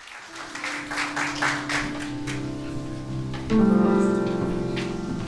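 Applause thinning out as a grand piano begins an introduction: a held note, then about three and a half seconds in a louder chord that rings on.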